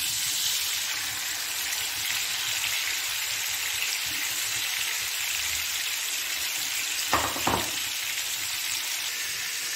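Marinated chicken pieces sizzling in hot oil in a frying pan: a steady frying hiss, with two short knocks about seven seconds in.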